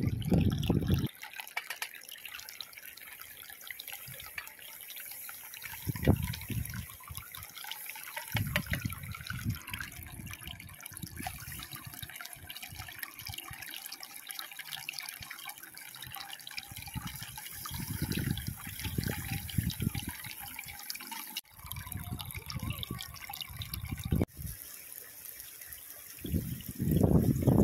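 Egg mixture sizzling in a hot frying pan over a wood fire: a steady high hiss. Low rumbles and thumps come and go over it.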